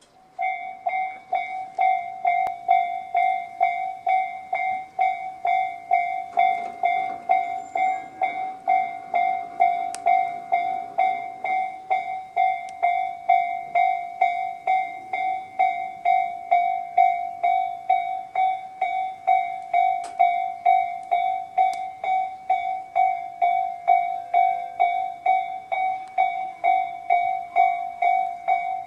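Japanese electronic level-crossing warning bells of the Tobu "sound C" type, sounding from both sides of the crossing. They start just after the beginning and ring a steady, evenly repeating ding about twice a second.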